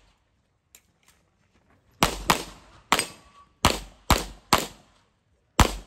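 Pistol shots during a practical shooting course of fire: after about two seconds with only faint clicks, seven sharp shots follow, some in quick pairs, each with a short echo.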